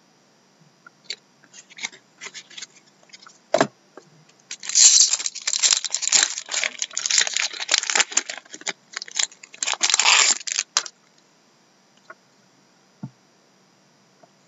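Foil wrapper of a trading card pack being torn open and crinkled: about six seconds of crackling tearing noise, after a few light clicks and a single knock.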